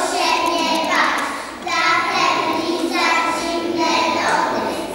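Young children singing together in unison, in sung phrases with a short break about a second and a half in.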